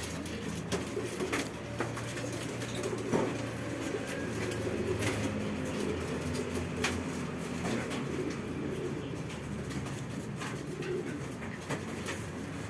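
Pigeons cooing steadily, with a few sharp clicks scattered through.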